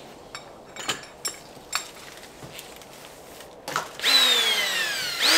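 Cordless drill being fitted with a drill bit: a few small clicks, then the drill runs with a whine that falls steadily in pitch as the keyless chuck is tightened on the bit, followed by two short bursts near the end.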